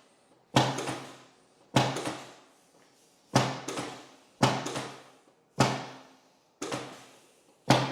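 Seven sharp thuds about a second apart, each dying away quickly: chiropractic thrusts along the ribs.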